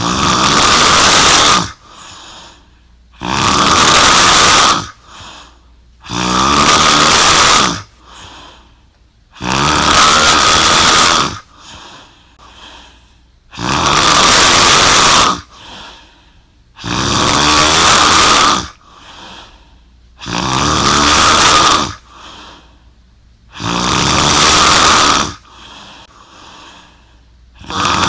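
A young woman snoring hard in deep sleep: loud snores about every three and a half seconds, each lasting one and a half to two seconds, with softer breaths between them.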